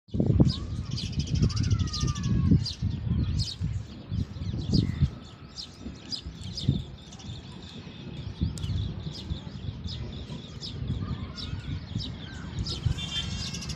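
Many small birds chirping in quick, repeated short notes, over an uneven low rumble that comes and goes.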